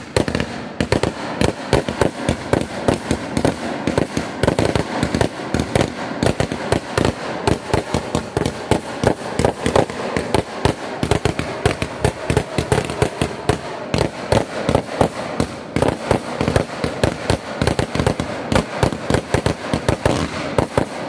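Aerial fireworks bursting in a rapid, continuous barrage: sharp bangs come several times a second without a break, over a bed of crackling.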